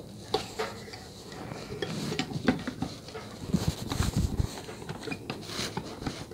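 Small metal parts of a brass model locomotive boiler and its chassis clicking and knocking as they are handled and pushed together, with a cluster of heavier knocks about halfway through.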